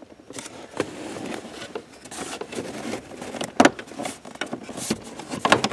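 Dashboard parts being handled and fitted as a dash light is put into its panel: rustling with several sharp plastic clicks and knocks, the loudest about three and a half seconds in and a few more near the end.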